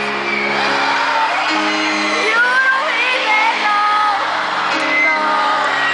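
Live grand piano playing sustained chords, with high-pitched screams and whoops from a crowd over it.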